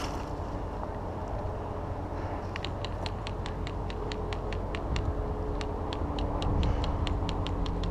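Steady outdoor noise of a person moving along a trail through dry brush. From about two seconds in, a faint, rapid run of high ticks comes at roughly four or five a second.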